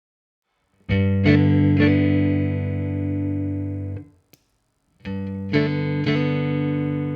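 Guitar played through a compressor effect. Two short phrases of picked notes each settle into a long, evenly sustained ringing chord, with a brief silence between them about four seconds in.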